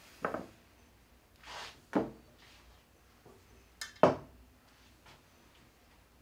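Dishes and utensils knocking on a wooden kitchen table, three sharp knocks about two seconds apart with a short ring after each, the last the loudest. A soft rustle comes between the first two.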